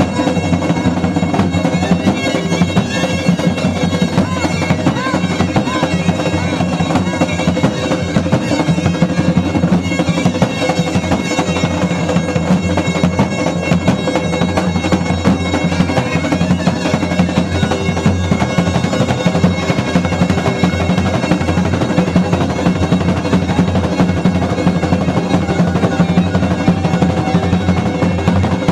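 Dance music with a bagpipe-like drone held throughout, a busy melody above it and drums keeping a steady beat.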